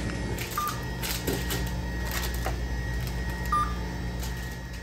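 Self-checkout barcode scanner giving two short high beeps about three seconds apart as items are scanned, over a steady low hum with a few light handling clicks.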